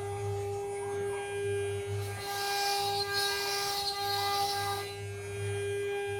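CNC router spindle running with a steady whine while the bit cuts a partition panel. The cutting noise swells and fades as the tool moves, loudest from about two and a half to five seconds in.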